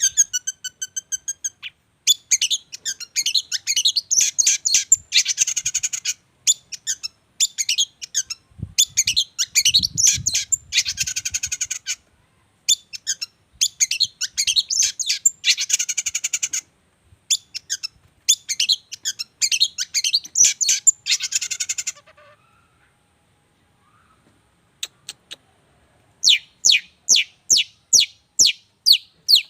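A songbird sings in long, fast, varied high phrases broken by short pauses, then falls silent for a few seconds. Near the end it gives a run of evenly spaced down-slurred whistles, about three a second.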